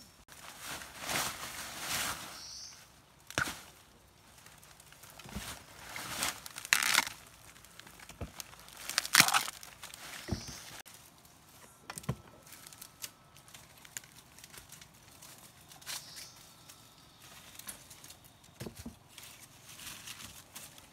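Rustling and crunching of dry bamboo leaves and papery bamboo sheaths as someone moves through bamboo undergrowth, in uneven bursts that are loudest in the first half, with scattered snaps and clicks.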